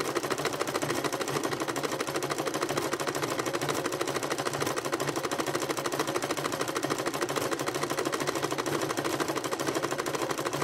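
Electric sewing machine running steadily at speed, a fast, even clatter of needle strokes as it sews a three-step zigzag stitch through coiled fabric-wrapped rope.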